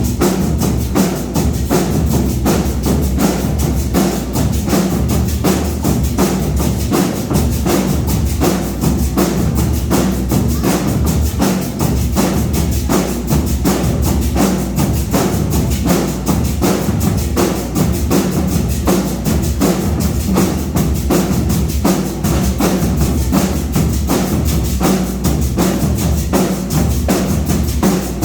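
Marching band playing a loud, steady drum-and-percussion beat, with dense rapid strikes over low bass tones.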